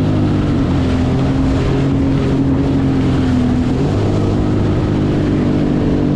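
Jet ski engine running steadily under way, its pitch shifting slightly about four seconds in.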